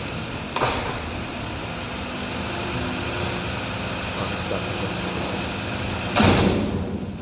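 Diesel engine of a Mack garbage truck with a McNeilus front-loader body running steadily, with a steady high whine over it. A short sharp burst of noise comes about half a second in, and a louder, longer one about six seconds in.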